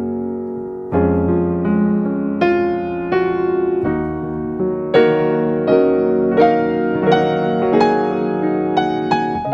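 Background piano music: a slow, calm melody of struck notes with held chords.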